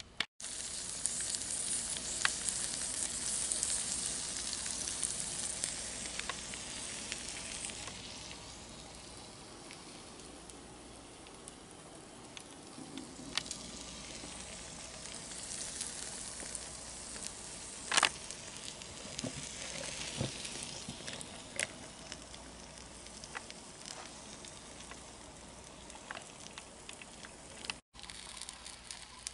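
Battered corn dogs sizzling as they cook in an electric corn dog maker, a steady hiss that is loudest at first and fades, with a few clicks and one sharp knock a little past halfway.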